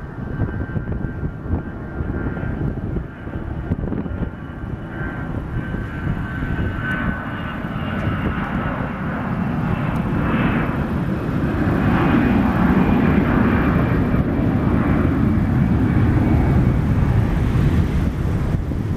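Airbus A320-family jet airliner's twin jet engines at takeoff power on the takeoff roll. Steady high whining tones at first give way to a broad roar that builds louder from about halfway through and stays strong as the plane accelerates and lifts off.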